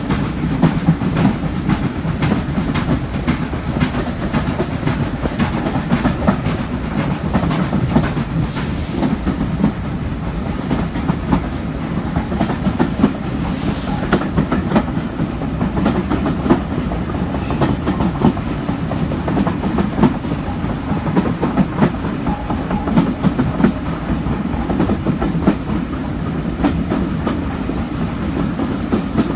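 Heritage steam train, hauled by a Stanier Black 5 4-6-0 locomotive, running steadily along the line, heard at an open carriage window: a continuous low rumble of the carriages with a constant clickety-clack of wheels over the rails.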